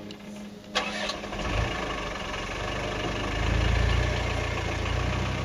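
A vehicle engine starting about a second in and then running steadily with a deep rumble.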